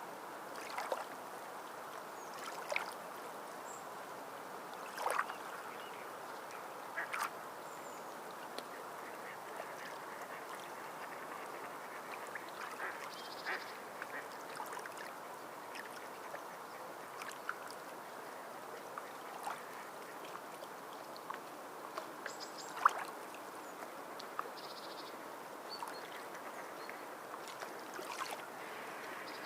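Sea water lapping, a steady wash broken by irregular short splashes and slaps.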